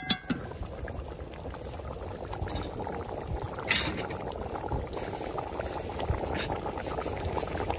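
Pot of corn soup boiling hard, a steady bubbling. A metal spoon clinks against the pot at the start, and there is one brief sharp sound about four seconds in.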